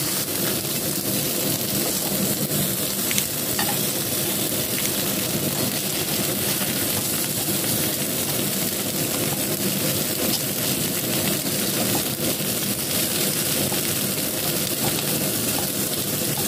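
Slices of Cantonese turnip cake (lo bak go) sizzling steadily as they pan-fry with little or no oil in a nonstick frying pan. A few light clicks come from metal tongs turning the pieces.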